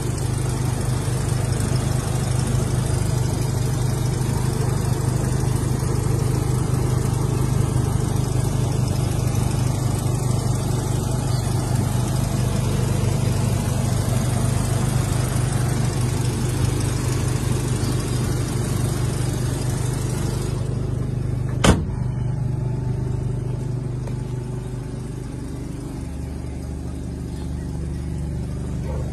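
Mazda RX-7 Turbo II's twin-rotor turbocharged rotary engine idling steadily, a constant low hum with hiss over it. A little past two-thirds through there is a single sharp click, after which the hiss drops away and the engine sounds duller.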